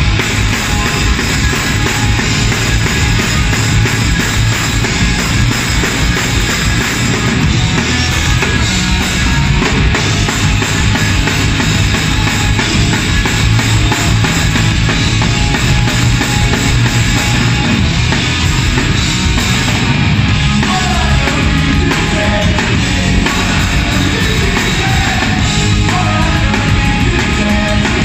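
Live punk rock band playing loud and without a break: drum kit with crashing cymbals, distorted electric guitar and bass guitar.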